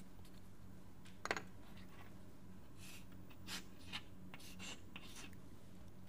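Writing: short scratching strokes of a pen or marker on the writing surface, one about a second in and a quick run of them between three and five seconds in, over a steady low hum.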